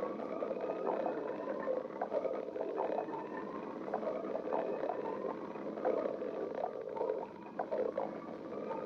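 A person's stomach growling from hunger: a continuous gurgling rumble whose pitch slowly wavers. Short squelching pops come every second or so.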